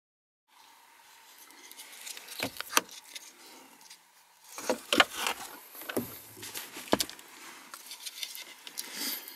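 Handling noise from wiring and plastic trim being worked under the dashboard: rustling with a string of sharp clicks and knocks, the loudest about five and seven seconds in, over a faint steady hum.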